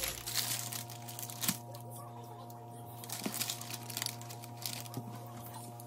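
Steady low electrical hum, with a few faint clicks and light crinkling from handling in the kitchen.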